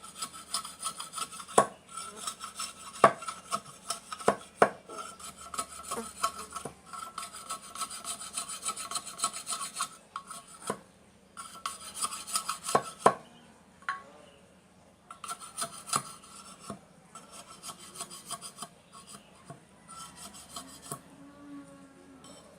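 Bamboo being rasped by hand in runs of quick strokes lasting several seconds, broken by short pauses. A few sharp knocks stand out among the strokes.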